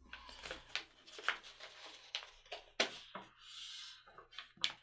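A sheet of paper rustling and crackling as fingers fold it over and press along a crease to form a paper airplane wing, with a longer smooth rub of fingers sliding along the fold about three and a half seconds in.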